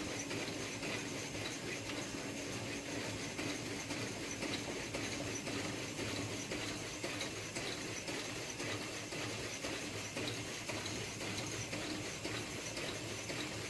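A home-built CNC saw running: a steady mechanical hum and hiss with faint irregular ticks.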